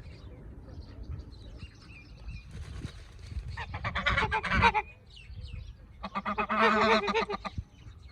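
Two loud bouts of harsh, wavering animal calls, the first about four seconds in and the second near seven seconds, each lasting about a second, with faint high chirps between them.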